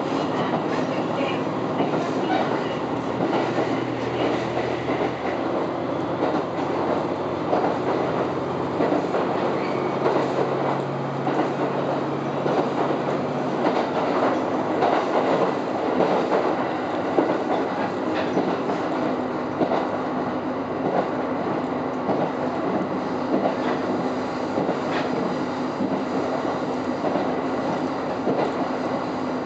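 Cabin noise of a KiHa 127 diesel railcar under way: the Komatsu diesel engine's steady drone together with the rumble of wheels on the rails. A low engine note shifts in pitch during the first half.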